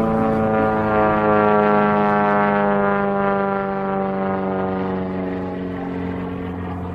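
Piston engine and propeller of a single-engine aerobatic plane flying overhead: a steady drone whose pitch slowly falls as it passes and moves away, fading toward the end.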